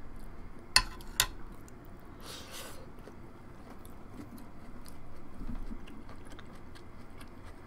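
A person chewing corn cheese close to the microphone, with small wet mouth clicks throughout and two sharp clicks about a second in.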